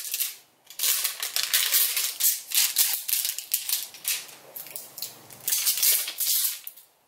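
Thin plastic wrap crinkling as it is peeled and pulled off a hard plastic toy capsule, in a string of short rustling bursts.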